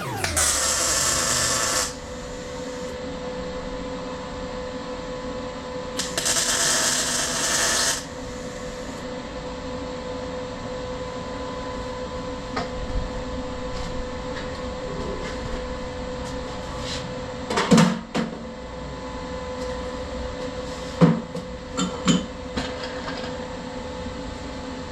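Tack welding on a steel welding cart: two harsh, crackling welding-arc bursts of about two seconds each, over a steady machine hum. A power-tool whine winds down at the very start, and a few metal knocks come later.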